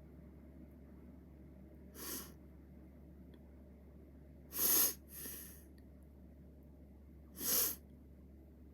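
A person's quick, sharp breaths: one about two seconds in, a loud pair near the middle and another near the end. These are attempts to bring on a sneeze, and the sneeze does not come.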